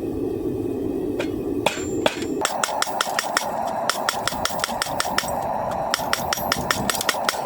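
Blacksmith's hammer striking hot coil-spring steel over the anvil horn, drawing the bar out into a blade and handle. There are a few blows about a second in, then a fast, even run of about five strikes a second, each with a bright metallic ring, over a steady rushing noise.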